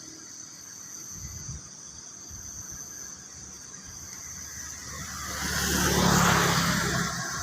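A motor vehicle passes by, its engine and tyre noise swelling to a peak about six seconds in and then fading, over a steady high-pitched drone of insects.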